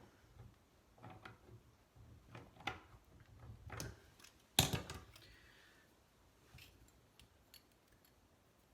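Pliers working on a faucet cartridge as it is tightened down: scattered small metal clicks and knocks, the loudest a sharp clank about four and a half seconds in, then a few faint ticks.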